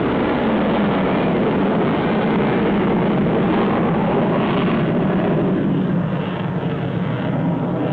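Jet engine noise of Thunderbirds F-16 fighters flying past, a loud steady rushing sound that eases slightly about six seconds in.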